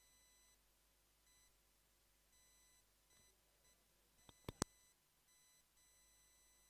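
Near silence: faint steady electronic whine at several high pitches cutting in and out, with a few sharp clicks about four and a half seconds in.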